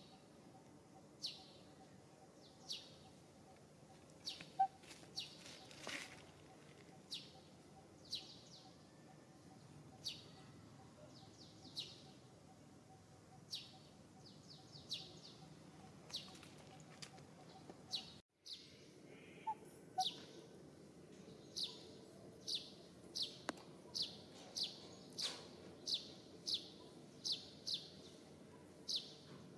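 A bird calling over and over with short, high, falling chirps. They come every second or two at first, then about two a second in the last third. The sound breaks off briefly about two-thirds of the way through.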